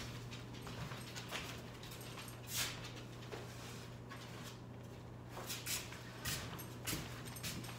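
Faint scattered knocks, clicks and rustles, the clearest about two and a half seconds in, over a steady low hum.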